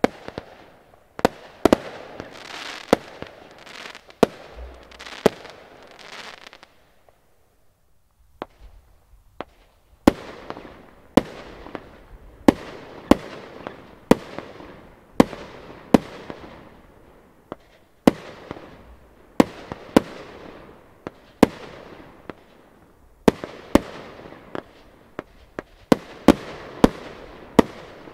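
Broekhoff Crown Executive consumer fireworks battery firing shot after shot, about one a second. Each is a sharp bang followed by a fading crackling hiss as the shells burst. The firing thins to a few small pops for a few seconds about a quarter of the way in, then picks up again.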